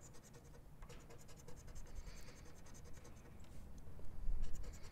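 A scratch-off lottery ticket being scratched in quick short strokes, the scratching getting louder near the end.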